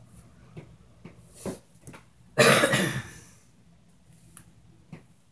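A single loud, close cough lasting about half a second, a little over two seconds in. It is surrounded by a few faint short ticks and knocks.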